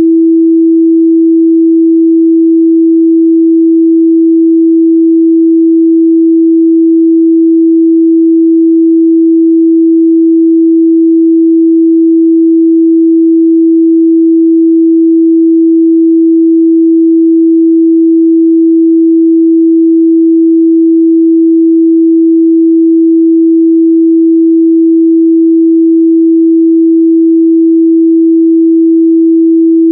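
A continuous 328 Hz sine-wave test tone, one pure steady pitch held at a constant loud level.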